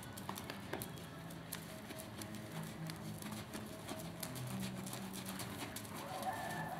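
Paint horse walking on sand arena footing: soft, irregular hoofbeats with small clicks.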